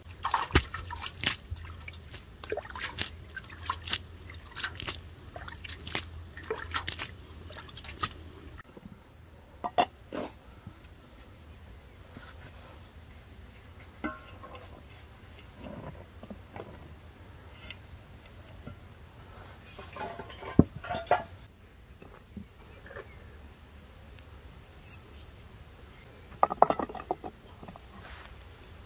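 Crickets chirring in one steady, high, unbroken tone. Over it, a quick run of sharp taps and knocks from bricks and mortar being laid fills the first eight seconds or so. After that come scattered clinks and knocks from clay pots being handled, the loudest about two-thirds of the way in and near the end.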